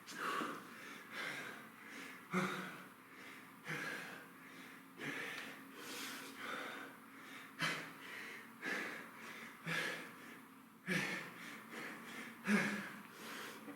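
A man breathing hard and rhythmically under exertion, a sharp exhale or gasp roughly every second and a quarter during kettlebell reps.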